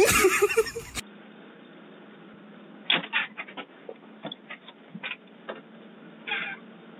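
For about a second, a loud noisy rustle with a few short squeaky chirps. Then the sound of a doorbell camera's microphone: a steady hiss and faint hum, with a scatter of knocks and taps and one short scraping rustle, as something brushes close past the camera.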